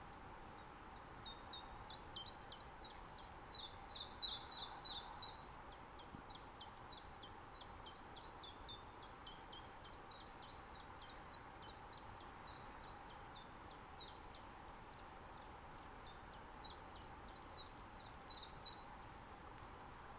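Common chiffchaff singing: long strings of short, high notes that alternate up and down in pitch, in two phrases with a pause of about two seconds between them, over a faint steady hiss.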